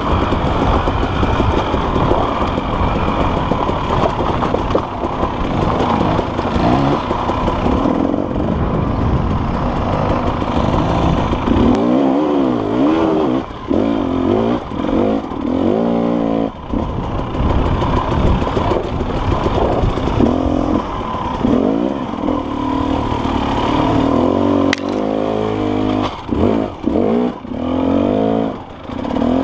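KTM dirt bike engine, heard from the bike itself, revving up and down with the throttle on rocky singletrack. The revs rise and fall in quick sweeps in the second half.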